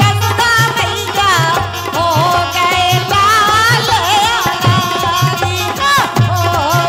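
A woman singing a Kartik geet, a devotional folk song, in a wavering, ornamented melody, with a drum keeping a steady beat underneath.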